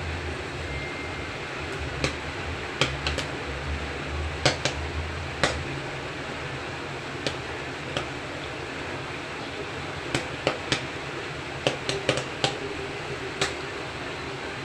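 Popcorn being eaten close to the microphone: scattered sharp, irregular crunches and clicks over a steady fan-like hiss.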